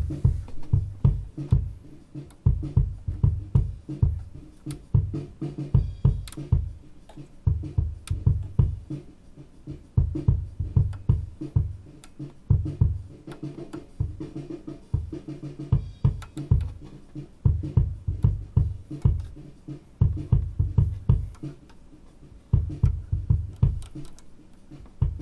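Acoustic drum kit playing a funk groove: bass drum and snare hits with sharp cymbal or hi-hat strikes, played in short phrases broken by brief pauses.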